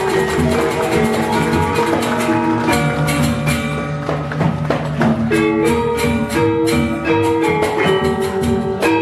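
Balinese gamelan selonding ensemble playing: iron-keyed metallophones struck with mallets, many overlapping notes ringing on in a dense pattern.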